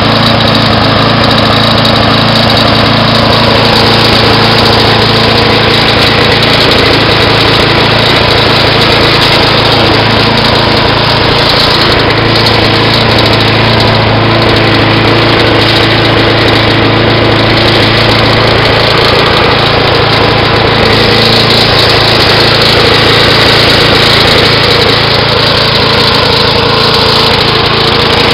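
Vintage Toro Timemaster lawnmower's Briggs & Stratton engine running loud and steady at a constant speed.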